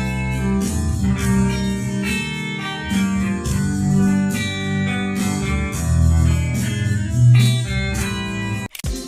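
Guitar music, plucked notes over a bass line, stopping suddenly near the end as a different track with a steady beat begins.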